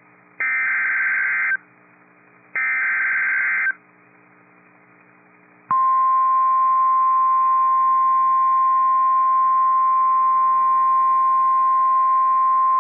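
NOAA Weather Radio Emergency Alert System (EAS) signal: two buzzy, roughly one-second bursts of SAME digital header data about a second apart, then after a pause of about two seconds the steady 1050 Hz weather radio alert tone starts and holds. The sequence marks the start of a new warning broadcast.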